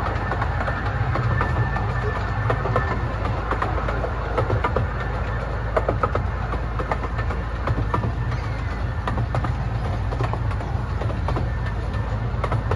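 Riding in an open carriage of a miniature railway train hauled by a small diesel locomotive built to look like a steam engine. A steady low rumble runs throughout, with frequent irregular clicks and clatter of the wheels on the track.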